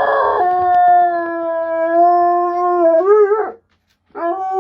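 A dog howling: one long, steady howl held for about three seconds that wavers in pitch before it breaks off, then a second, wobbling howl starts near the end.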